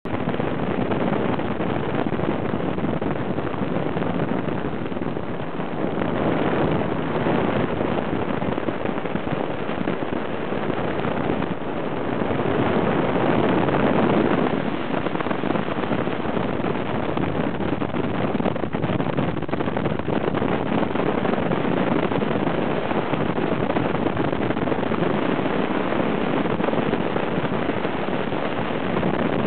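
Light aircraft's engine and propeller running steadily in flight, heard from inside the cockpit and mixed with wind rushing over the microphone; it swells a little about halfway through.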